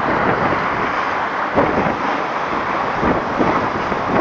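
Wind blowing on the microphone and water rushing along the hull of a sailing yacht under way, gusting up and down with a few dull thumps.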